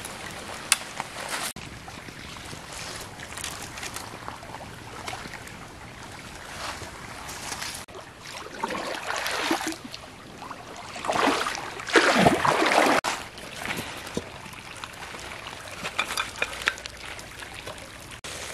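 A metal cooking pot dipped into a shallow stream and filled, with water splashing and pouring for a couple of seconds about two thirds of the way through, over the steady rush of the stream. A few sharp clacks of dry sticks near the start.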